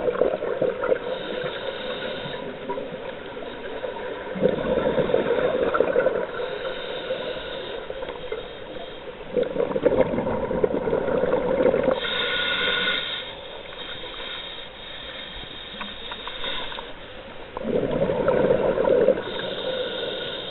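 Scuba regulator breathing heard underwater: four bubbly exhalations a few seconds apart, each followed by a hissing inhalation.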